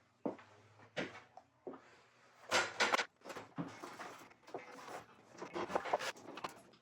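Scattered clicks, knocks and short scrapes of hand work: a multi-layer metal exhaust gasket being set against the header flange and the flange bolts hand-threaded. The busiest stretches come about two and a half seconds in and again near the end.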